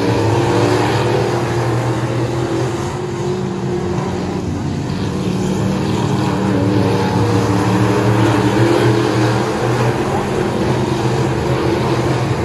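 Stock cars racing around a short oval track, several engines running at once in a steady drone that swells and eases slightly as the pack goes round.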